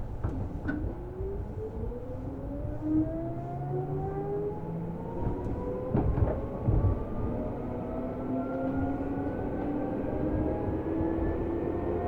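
Seibu New 2000 series electric train accelerating, heard from inside the car: the whine of its traction motors and gears rises steadily in pitch over the rumble of the wheels. A few knocks from the wheels on the track come about halfway through.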